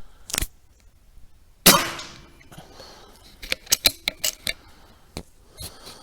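A single rifle shot, a sharp crack that dies away over about half a second, followed a couple of seconds later by a quick run of sharp metallic clicks.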